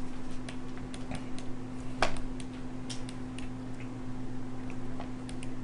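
Light, irregular clicks of a computer mouse and keyboard, one a little louder about two seconds in, over a steady low hum.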